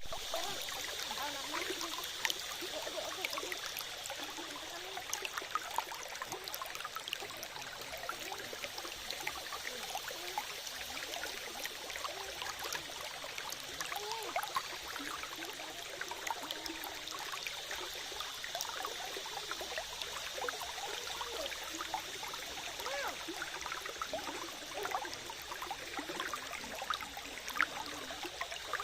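Water of a small spring-fed stream trickling and bubbling steadily, with many small plinks over an even rush.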